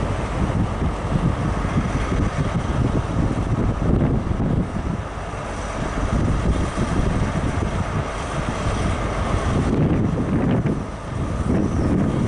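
Great Western Railway HST (InterCity 125) moving slowly past, the diesel engine of its Class 43 power car running steadily, with gusty wind rumble on the microphone.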